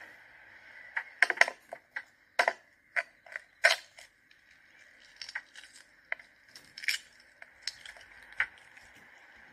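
Hard-boiled eggshells cracking as an egg is pressed and rolled under the palm on a metal tray: a run of sharp crackles in the first few seconds, then lighter clicks and crackles as the shell is picked and peeled away.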